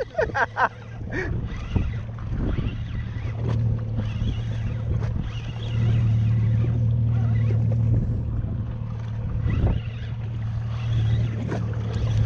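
Steady low hum of an electric trolling motor, growing louder about six seconds in.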